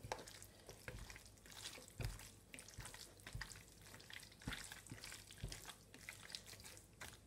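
Bare hands squishing and turning chopped raw chicken with seasonings in a plastic bowl: faint, irregular wet squelches with a few soft knocks.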